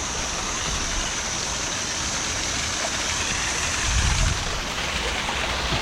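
Waterfall rushing steadily, an even wash of falling water, with a brief low rumble about four seconds in.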